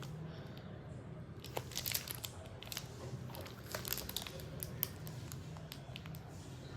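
Packaging being handled and crinkling, with scattered short crackles and light taps over a low steady hum.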